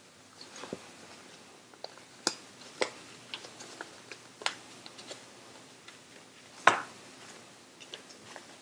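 Folded origami paper units crinkling and crackling in the hands as they are handled and fitted together: a quiet background broken by scattered sharp paper crackles, the loudest about three-quarters of the way through.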